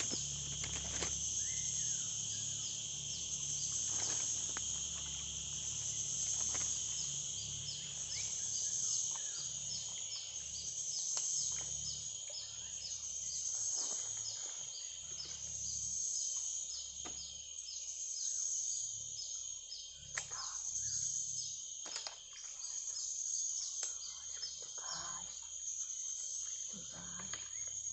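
Steady high-pitched chorus of insects, with a chirp repeating about twice a second and the whole chorus swelling and fading every two or three seconds.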